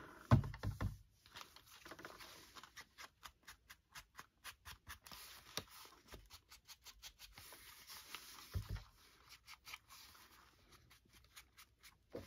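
Quick light scratchy strokes on paper, evenly spaced at about three to four a second, from hand crafting work on a paper folio, with a few dull low thumps at the start and one more about eight and a half seconds in.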